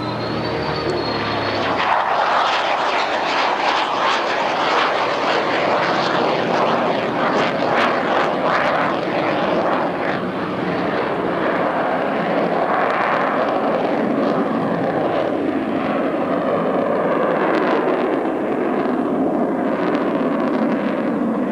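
Grumman F-14 Tomcat jet flying past, with loud, steady jet-engine noise that builds about two seconds in and holds. At the start a lower, pitched engine hum can be heard under it.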